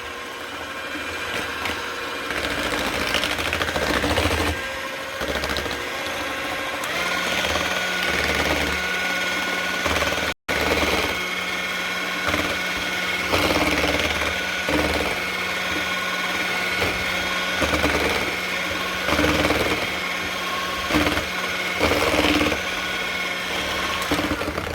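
Handheld electric mixer running, its beaters whipping eggs, sugar and oil together in a bowl, with a steady motor hum and a few brief knocks.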